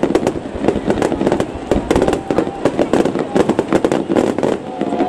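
A fireworks display: a rapid, irregular stream of sharp bangs and crackling pops.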